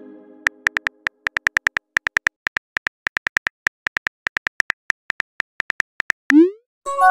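Rapid, uneven phone keyboard tap clicks as a message is typed, then a short rising sweep and a chiming message alert tone near the end.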